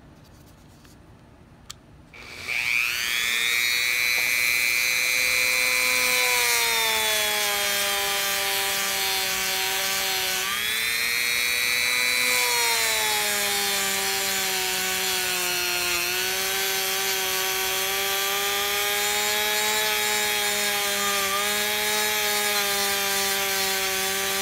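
Dremel rotary tool with a cloth polishing wheel, switched on with a click about two seconds in and then running with a steady high whine while buffing a plastic shaving-brush handle. The pitch dips and recovers a few times as the wheel bears on the handle.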